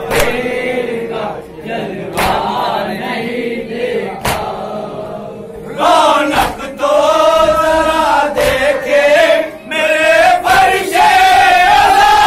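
Men's voices chanting a Shia mourning salaam together in a crowd, with sharp strikes at a slow beat about every two seconds. The chanting gets louder and fuller about six seconds in.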